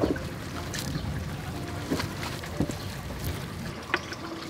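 Hands kneading and squeezing wet grated coconut in a bowl, soft squelching with liquid trickling, the pressing out of coconut milk.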